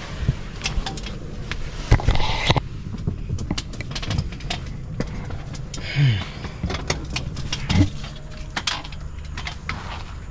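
Scattered knocks and clicks of someone climbing down a telescopic aluminium ladder from a vehicle rooftop tent, with a louder clatter about two seconds in and a low steady rumble underneath.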